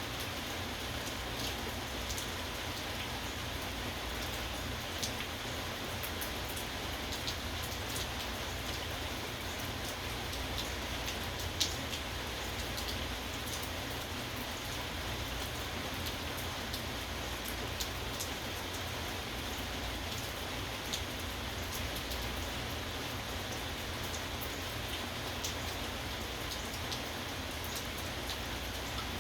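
Steady rain with individual drops pattering sharply on a hard surface, scattered ticks throughout and one louder drop strike about a third of the way in.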